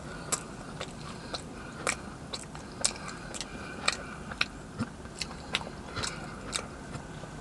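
A person chewing a mouthful of Twix doughnut close to the microphone, with short wet mouth clicks about once or twice a second.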